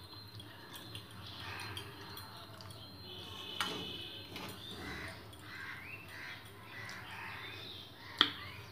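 Crows cawing repeatedly in the background, with two sharp taps on a steel plate as food is picked up by hand, the louder tap near the end.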